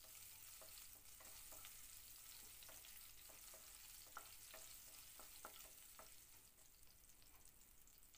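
Faint sizzle of cumin seeds, chopped garlic and green chilli frying in shallow oil in a nonstick pan, with small scattered crackles as a wooden spatula stirs them. It quietens toward the end.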